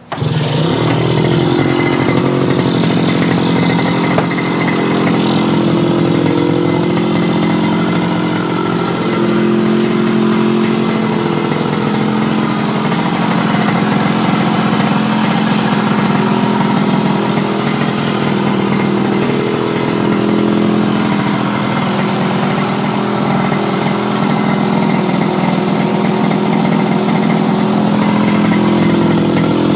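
Yamaha YL2C 100 Trailmaster's single-cylinder two-stroke engine catching on the kick-start and running steadily, with a new magneto-side crankshaft seal fitted to cure an air leak.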